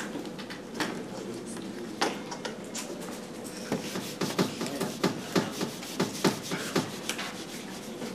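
Handheld eraser wiped back and forth across a whiteboard in quick rubbing strokes, about three a second, starting a little before halfway through. A couple of scattered knocks come earlier.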